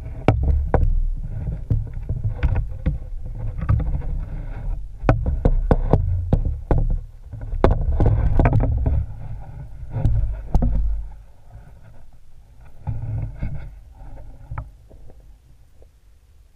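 Muffled underwater rumbling with many sharp knocks and clicks from a camera housing being jostled under the ice. It quietens after about eleven seconds, leaving a few scattered clicks.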